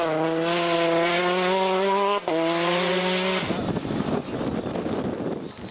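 Rally car engine at full throttle on a gravel stage, its pitch climbing steadily, with a short break about two seconds in like an upshift before it climbs again. The engine tone cuts off suddenly about three and a half seconds in, leaving a rough hiss.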